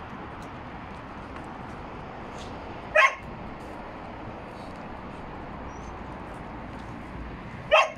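A dog barking: one short bark about three seconds in and another near the end, over steady background noise.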